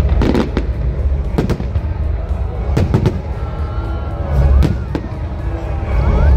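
Aerial firework shells bursting overhead: a series of sharp bangs, several in the first three seconds, over a steady low rumble.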